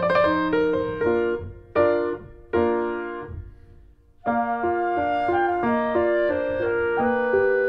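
Background piano music: a few chords ring out and fade away to a brief near-pause a little past the middle, then a steady run of notes starts again.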